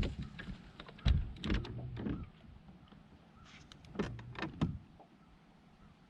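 Two short clusters of knocks and clatter in a small boat, about a second in and again about four seconds in.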